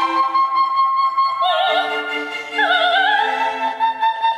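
Recording of a female operatic soprano singing high held notes with wide vibrato over a steady instrumental accompaniment, changing note a couple of times.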